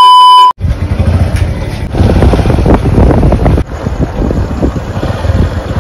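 A steady test-tone beep from a TV colour-bars transition cuts off about half a second in. It is followed by heavy rumbling wind noise on the microphone, with a few knocks, as from being carried along outdoors.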